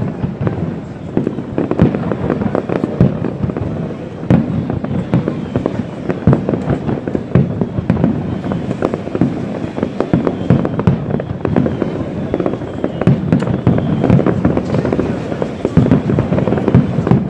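Fireworks display: aerial shells bursting in a continuous barrage, many sharp bangs a second overlapping with no pause.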